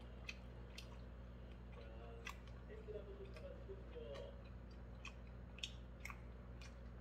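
A person chewing pan-fried dumplings with the mouth close to the microphone: soft wet smacks and sharp mouth clicks at irregular intervals, about one or two a second.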